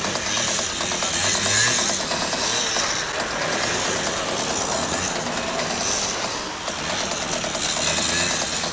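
Small scooter engine revving up and down while the scooter is ridden on one wheel in a stunt.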